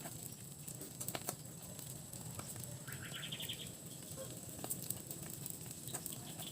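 Faint crackling and ticking from a whole milkfish on a hot charcoal grill, with a short rapid chirping trill about three seconds in.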